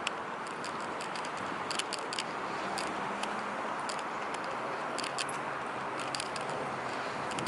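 Steady hum of street traffic, with scattered sharp clicks and rattles coming at irregular moments.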